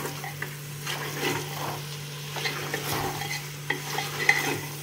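A spoon stirring and scraping bone-in mutton pieces through masala in a tall pressure cooker, with a light sizzle of frying underneath. The scrapes and clicks come irregularly, a few strokes a second.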